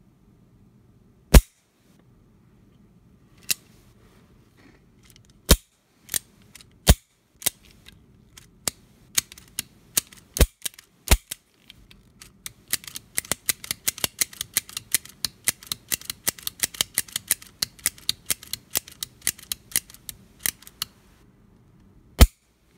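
Taurus Model 80 .38 Special revolver's action being worked by hand: sharp metallic clicks of the hammer and cylinder. Single loud clicks come every second or so at first, then a rapid run of several clicks a second for about eight seconds, with one last loud click near the end.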